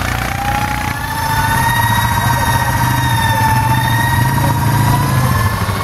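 Off-road vehicle's diesel engine idling steadily, with a steady high whine over it from about a second in that rises slightly near the end.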